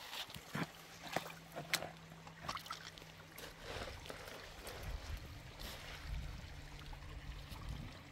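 Water trickling and gurgling, with a few sharp knocks in the first couple of seconds and a low rumble building in the second half.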